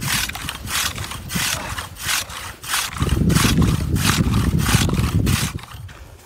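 Hand ice saw sawing through lake ice in steady up-and-down strokes, about two to three a second, stopping shortly before the end. A low rough noise runs under the strokes from about three seconds in.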